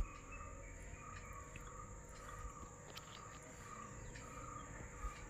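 Faint background sound: soft chirps from a small animal repeating about two a second, over a steady high whine, after a sharp click at the very start.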